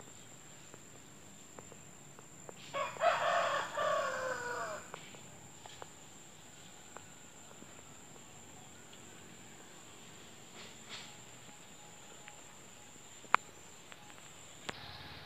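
A rooster crows once, about three seconds in, the call lasting about two seconds and falling at the end. A steady high-pitched insect whine runs beneath it until near the end, and there is one sharp click shortly before the end.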